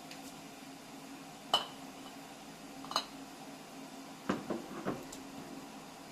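Dishes and utensils clinking and knocking during kitchen work. A loud ringing clink about one and a half seconds in, another near three seconds, then a quick run of three or four knocks a little past four seconds.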